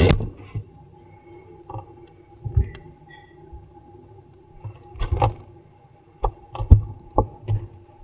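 Scattered knocks, thuds and clinks of things being handled and bumped, loudest about five seconds in and again around seven seconds, over a faint steady hum.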